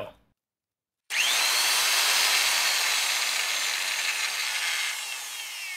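Makita 9005B angle grinder switched on about a second in, spinning up with a quick rising whine and running loud and steady at full speed, then switched off near the end and starting to wind down with a falling whine. This is the test run after fitting a new stator (field coil), and the motor runs.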